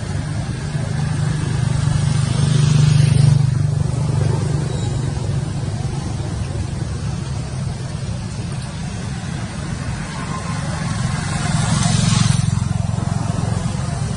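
Road traffic: a steady low rumble with two vehicles passing by, each swelling up and then falling away, about three seconds in and again near the end.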